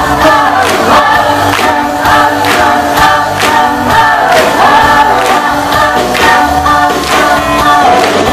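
Live band with drums and electric guitar playing a song over a steady beat, with several voices singing together.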